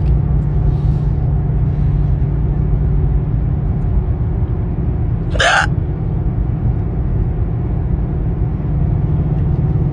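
A single sharp hiccup from a woman about five and a half seconds in, part of a bout of hiccups that has run for about fifteen minutes, over the steady low rumble and hum of a car interior.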